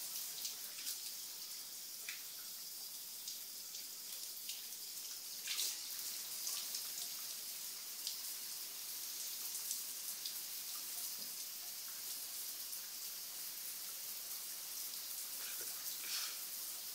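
Shower spray running into a bathtub: a steady hiss of falling water, with a few sharper splashes standing out now and then.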